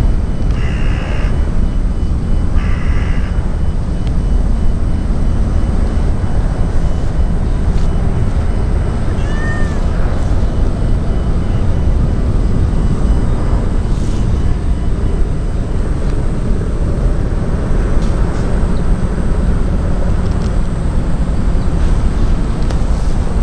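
Brown tabby-and-white cat meowing twice, two short calls in the first three seconds. After that there is only a steady low background rumble.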